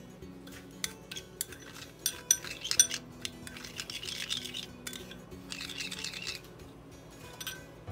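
A metal spoon and glass bowl clinking sharply against a small ceramic bowl, then the spoon stirring and scraping through a liquid sauce in two stretches of about a second each. Soft background music underneath.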